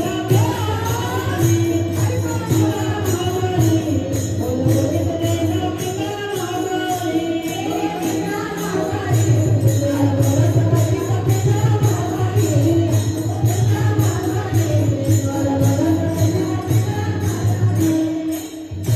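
Varkari kirtan bhajan: voices singing a devotional melody over the steady, even beat of small hand cymbals (taal).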